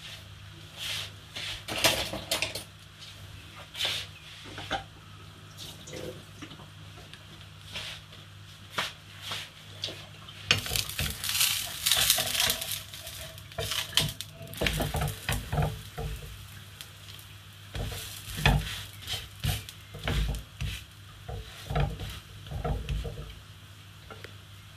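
Pancake frying in a non-stick frying pan with a light sizzle, while a plastic spatula clicks, scrapes and knocks against the pan to loosen and flip it. The scraping is densest about halfway through, followed by a series of heavier knocks.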